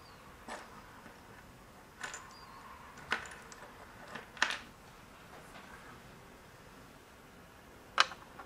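Small plastic miniature bottles and toy food items clicking and tapping as they are picked from a pile and set down on a miniature kitchen counter: about five sharp, separate taps, the loudest near the end.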